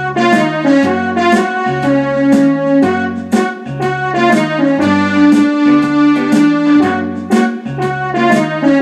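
Electronic arranger keyboard playing a blues piece: a repeating bass figure in the low register under steady, rhythmic chords and melody notes.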